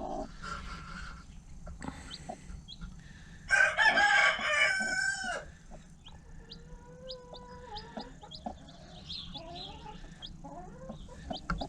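Chickens: a rooster crows once, about three and a half seconds in, for about two seconds, amid a hen's clucking and the short high peeps of chicks one and two days old.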